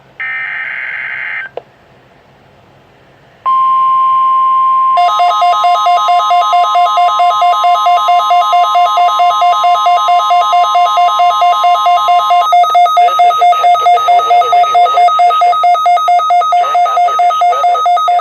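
NOAA Weather Radio alert: the last SAME digital header burst, a harsh buzzing data squeal, then a short pause and the steady 1050 Hz warning alarm tone. About five seconds in, the weather radio receiver's own alarm starts beeping over the tone, a two-pitch beep about four times a second. Near two-thirds of the way in the tone stops and a broadcast voice starts faintly under the beeping, which cuts off suddenly near the end.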